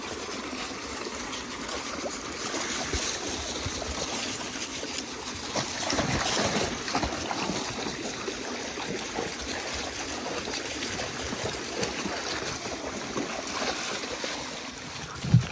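A small rocky brook running and trickling steadily over stones, with German shepherds splashing as they wade and leap through the water. A short sharp thump comes right at the end.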